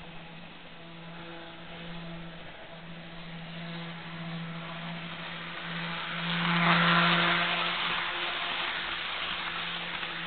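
HO-scale Jouef Amtrak Turboliner model train with a Kato F-3 motor drive running on its track. A steady motor hum sits under wheel-on-rail noise, which swells to its loudest about seven seconds in as the train comes close and then eases off.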